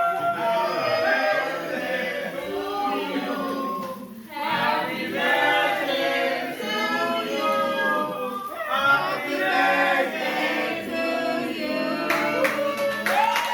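A group of voices singing together in chorus, in phrases with short breaks about four and nine seconds in.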